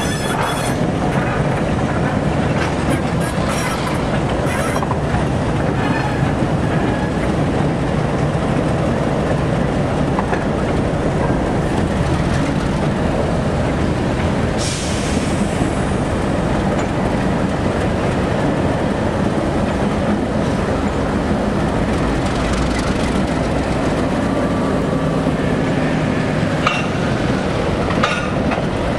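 Several ALCO 830-class diesel locomotives rolling slowly past, their engines running with a steady low rumble over the sound of steel wheels on the rails.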